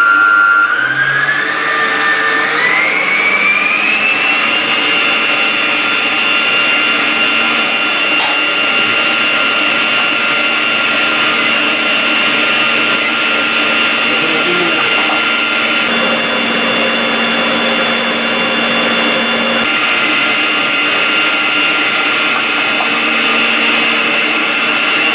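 Electric stand mixer running, its whisk beating eggs and sugar for a sponge-cake batter. The motor's whine steps up in pitch over the first few seconds as the speed is turned up, then runs steady.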